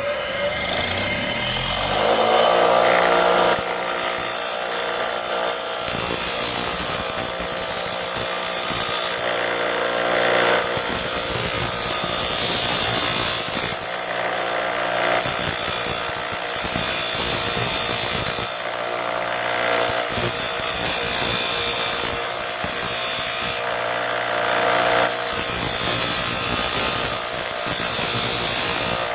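Small electric rotary sander spinning up, then running steadily with a high grinding hiss as it trims the edge of a plastic safety-goggle lens; the grinding stops for a moment every four or five seconds as the tool is lifted off and put back.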